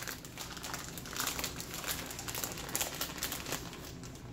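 Plastic bag of shredded Monterey Jack cheese crinkling as hands pull it open and reach inside, a quick run of small crackles.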